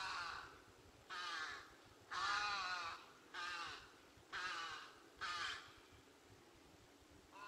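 A series of six loud animal calls, each arching up and down in pitch, about a second apart, falling silent for the last couple of seconds.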